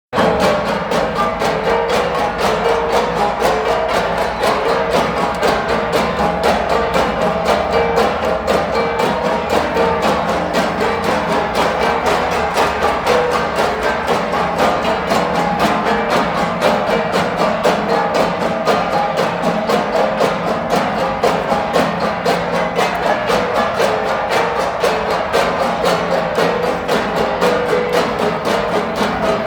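Percussion-led music with a quick, even beat of ringing pitched strikes that keeps going without a break.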